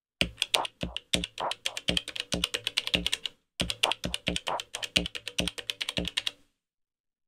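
Elektron Digitakt sampler playing slices of a sampled loop from its trig pads in keyboard mode: a fast run of short hits and clicks with low thuds, breaking off briefly about halfway and stopping about six seconds in.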